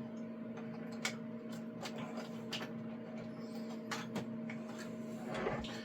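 Scattered light clicks and taps of plastic parts and PTFE tubing being handled on a Bambu AMS unit, over a steady low hum.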